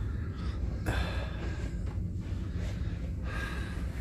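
A few short, breathy exhalations and sniffs close to the microphone over a steady low hum in a small cabin.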